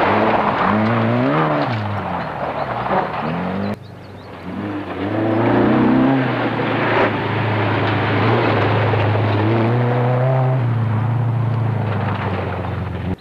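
Rally car engines revving hard through gravel-stage corners. The engine note climbs and falls again and again with each gear change and lift, breaks off abruptly about four seconds in, then a second car's engine rises and holds a high, strained note.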